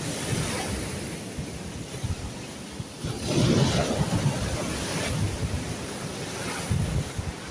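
Sea waves washing on the shore, with wind buffeting the microphone; a louder surge of surf about three seconds in.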